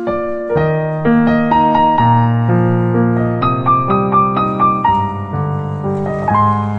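Background piano music: a gentle melody of struck notes over sustained low bass notes.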